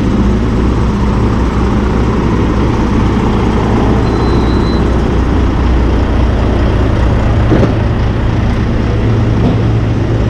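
Steady low drone of a heavy engine running, with a broad hiss over it and a single knock about three-quarters of the way through.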